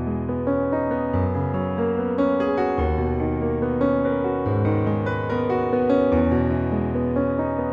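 Gentle piano background music, a melody of steady notes over low held chords.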